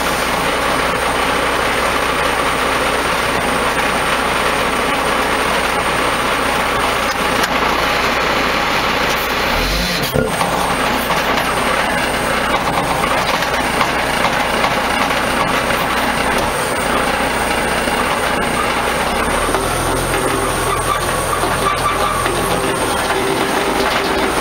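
Oilfield bed truck's diesel engine running steadily under load, driving the winch that hauls a stuck cement bulker. There is a single clank about ten seconds in, and the low engine note changes near the end.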